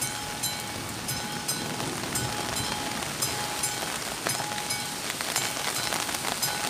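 Classic striking bell of a railway level crossing ringing steadily, about two strokes a second, over heavy rain hissing on the wet road.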